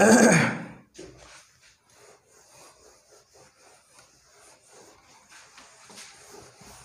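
Cloth duster wiping a whiteboard: faint, quick rubbing strokes repeated in a steady run. A short loud sound comes right at the start.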